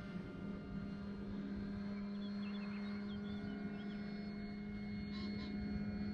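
Electric motor and propeller of a distant E-flite Carbon-Z Cessna 150T RC model plane: a steady drone holding one pitch.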